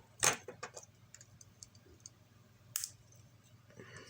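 Small plastic LEGO pieces clicking and clattering as they are handled and snapped together: a sharp click near the start, a few lighter ticks, and another sharp click a little under three seconds in.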